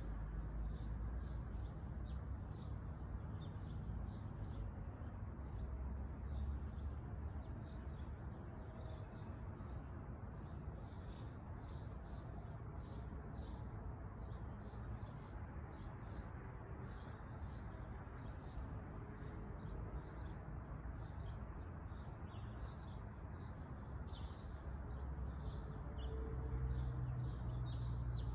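Small birds chirping: many short, high chirps throughout, over a steady low background rumble.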